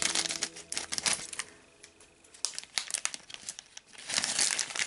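Scissors snipping across the top of a plastic blind bag, followed by the bag crinkling as hands pull it open. The crinkling is loudest near the end, after a short lull around two seconds in.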